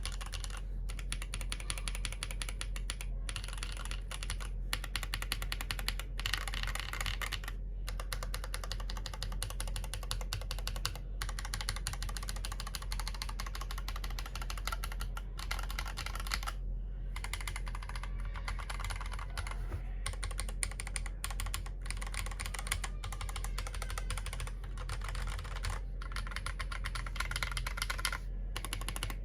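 Mechanical keyboard with Yok Panda tactile switches on a polycarbonate plate, typed on fast and continuously, with brief pauses every few seconds.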